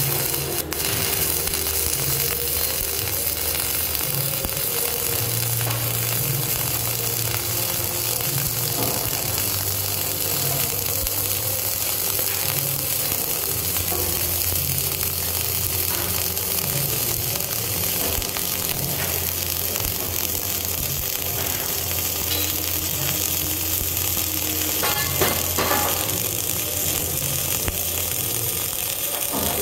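Self-shielded flux-core welding arc (Lincoln NR-305 5/64 in wire at 36 volts) burning continuously, a steady sizzling crackle with a few sharper pops about three-quarters of the way through.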